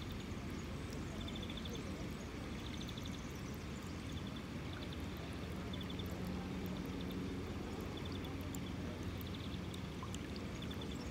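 Water rushing and gurgling along a narrow stream channel, with short runs of high chirping ticks every second or two above it.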